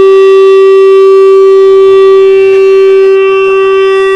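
Electric guitar feedback through the amplifier: one loud, steady, unwavering tone held throughout, with fainter higher overtones.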